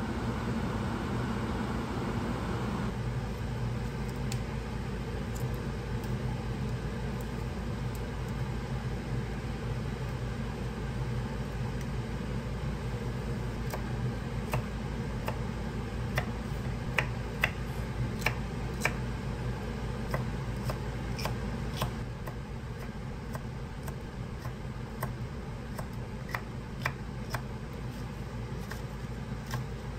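Chef's knife cutting leafy green vegetable stems on a wooden cutting board: scattered sharp taps, most frequent from about 14 to 27 seconds in, over a steady low hum.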